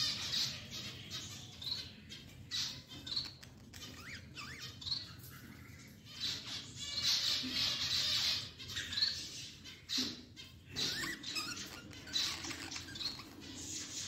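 Budgerigars chirping and squawking in short, irregular calls, with a few quick rising chirps.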